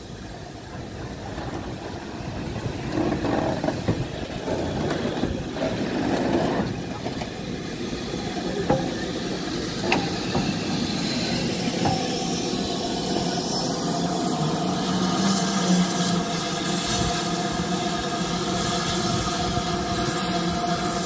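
BR Standard Class 5 steam locomotive moving slowly past at close range, growing louder over the first few seconds, with a few sharp clicks and then a steady hum over hissing noise.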